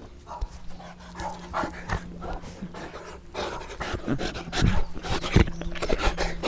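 Saint Bernard dog panting, with a couple of low thumps in the second half.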